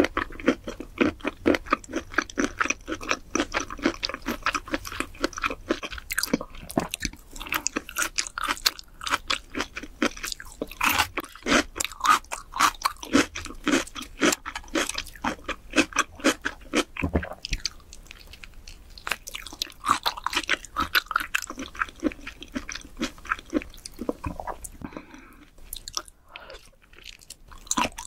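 Close-miked chewing of raw shrimp: a dense run of rapid mouth clicks and smacks, easing off briefly near the end.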